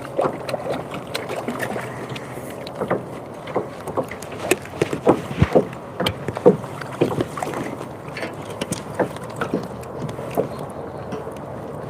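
Irregular short knocks and bumps in a kayak over a steady background hiss, some with a brief hollow ring, while a hooked smallmouth bass is brought in.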